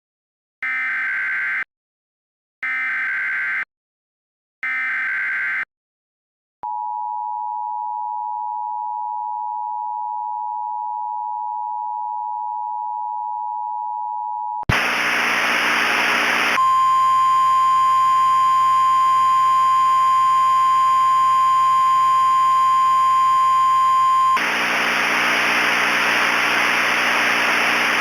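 Emergency Alert System tornado-warning tones: three one-second bursts of SAME header data tones, then the two-tone attention signal held steady for about eight seconds. Then a loud hiss of radio static sets in, with a steady single-pitch 1050 Hz NOAA Weather Radio alert tone over it for about eight seconds, and the static continues after the tone stops.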